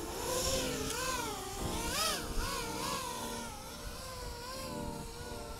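FPV drone's electric motors whining, the pitch wavering up and down continuously with the pilot's throttle changes as it flies low around. Slightly fainter after the first couple of seconds.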